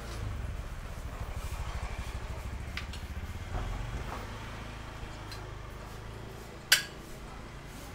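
Alley street noise dominated by a small motor scooter engine running close by, a low even pulsing that fades after about three and a half seconds into a steady low hum. A single sharp clink near the end.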